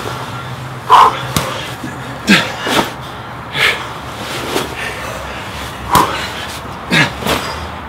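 Sandbag power cleans: repeated heavy thuds and slaps of the bag as it is caught at the chest and set down on the brick, mixed with sharp, forceful exhalations, about one every second.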